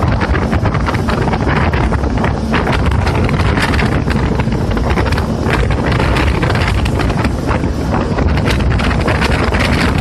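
Heavy wind buffeting the microphone on a jet ski running at speed, with the watercraft's engine and water noise mixed into a loud, steady rumble.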